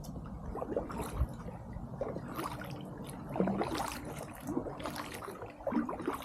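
Kayak paddle dipping into the water in irregular strokes, with small splashes and gurgling of water.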